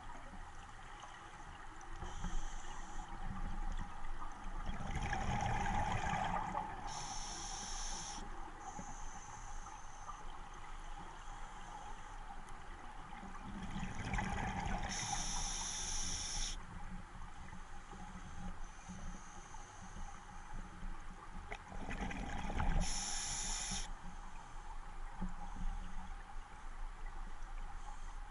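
Scuba regulator breathing underwater: three breaths about eight seconds apart. Each is a rumble of exhaled bubbles followed at once by a high hiss as air is drawn through the demand valve.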